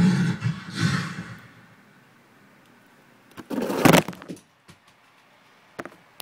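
The tail of a dubstep track with growling bass, fading out about a second and a half in. About three and a half seconds in comes one loud, sharp crackling knock lasting about half a second, then a couple of faint clicks near the end.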